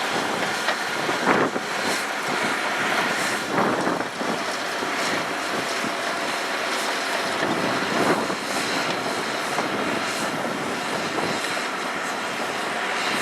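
Heavy earthmoving machine running steadily under load, with a few short metallic knocks about a second in, near four seconds and around eight seconds.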